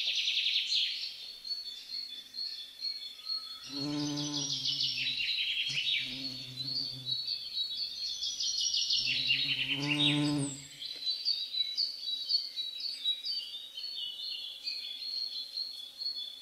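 Birdsong and insect-like chirping trills, a stage sound effect, running throughout. Three low held tones, each a second or two long, sound about four, six and nine seconds in.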